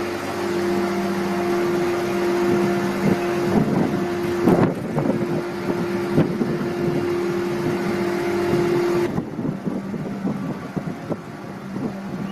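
A vehicle's engine running with a steady hum in two tones, with a cluster of knocks about four to five seconds in; the higher tone stops about nine seconds in.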